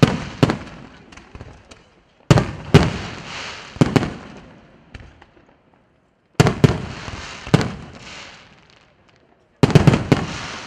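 Aerial firework shells bursting in volleys: a few sharp booms every three to four seconds, each followed by a fading crackle.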